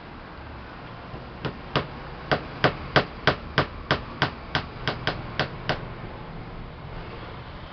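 Small hammer tapping nails into 10 mm plywood for string art: about fourteen light, quick strikes at roughly three a second, starting about a second and a half in and stopping near six seconds.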